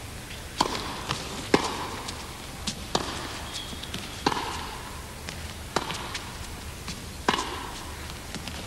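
Tennis rally: a ball struck back and forth by racquets, a sharp pop about every second and a half, six hits in all, each ringing briefly in a large indoor hall, with softer ticks between the hits.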